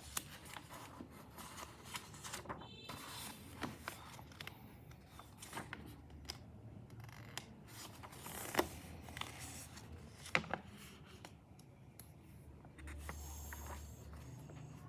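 Scattered small clicks, taps and rubbing, like objects being handled close to the microphone, with two sharper clicks around the middle. A low hum comes in near the end.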